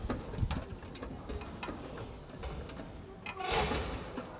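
Scattered light clicks and clinks from a loaded barbell and gym equipment, with a short hiss about three and a half seconds in.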